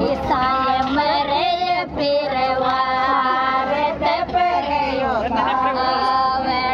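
A group of women singing a Rajasthani Mayra (bhat) folk song together, several voices overlapping in long held notes.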